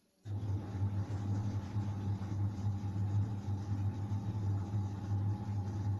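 A steady machine hum with a whirring hiss, switching on suddenly just after the start.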